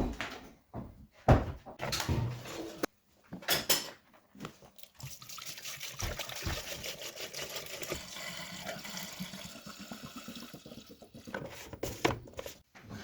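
A few knocks and clatters, then liquid pouring steadily for about six seconds, with more knocks near the end.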